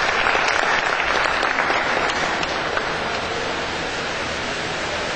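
Audience applauding, a dense patter of clapping that eases off slightly toward the end.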